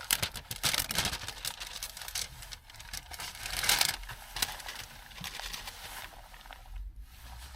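Packaging rustling and crinkling as it is handled at close range, an irregular run of crackles and scrapes with a denser burst about three and a half seconds in.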